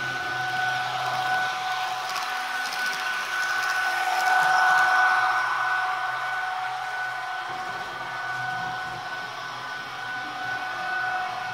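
Sound decoder of an H0 model Taurus electric locomotive playing its running sound through the model's small speaker: a steady two-note electric whine over fan-like blower noise, swelling louder about four to six seconds in.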